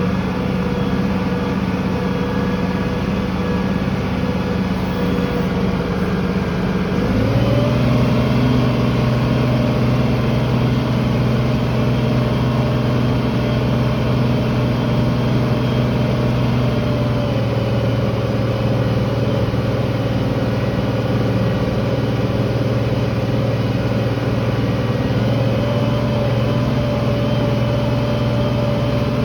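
Tractor engine running steadily under tillage load, heard from inside the cab. About seven seconds in the engine note shifts, then stays steady again.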